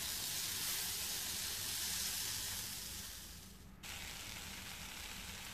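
Chicken cubes in a yogurt marinade sizzling as they fry on high heat in a nonstick pan, the liquid cooked off and the chicken starting to brown. The sizzle fades away about three and a half seconds in, then a quieter steady sizzle continues.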